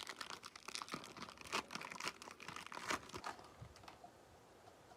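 An Upper Deck hockey card pack's wrapper being torn open and crinkled by hand, a dense crackle for about three and a half seconds that then dies down.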